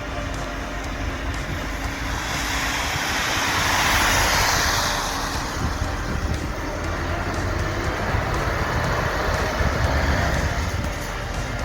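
Truck driving off past, its engine a low rumble throughout, with a rushing swell of noise that builds and peaks about four seconds in, then fades.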